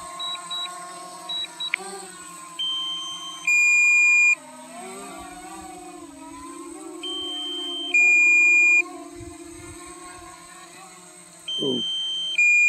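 DJI Mini 2 drone descending to land, its propellers humming steadily with a slight dip in pitch partway through. Over it, a two-part electronic low-battery warning beep sounds three times, about every four and a half seconds; the beeps are the loudest sound.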